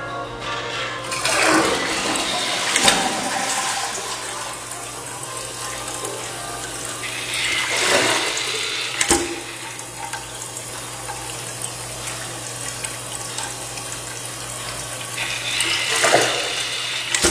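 Toilet tank flushing and refilling: a steady rush of water through the open tank of an American Standard Cadet III fitted with a TC auto-flush mechanism, with three louder swells of rushing water.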